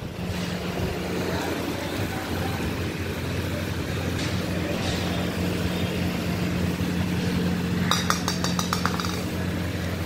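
A steady low hum under room noise, and about eight seconds in a quick run of light clinks.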